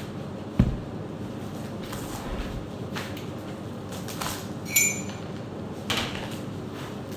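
Kitchen handling sounds: a heavy thump about half a second in, then a short ringing clink like glass or metal ware, and another knock near the end.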